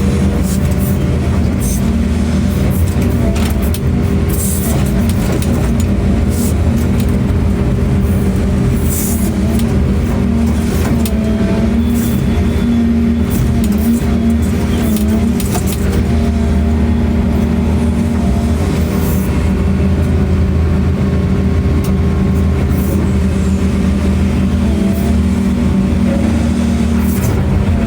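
Excavator's diesel engine running steadily as a constant low drone, with scattered clicks and knocks from the machine as it works.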